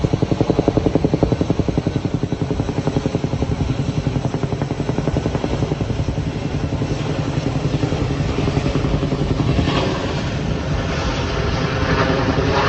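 Firefighting helicopter's rotor beating in a fast, steady pulse. The beat softens in the second half as a rushing noise grows louder toward the end.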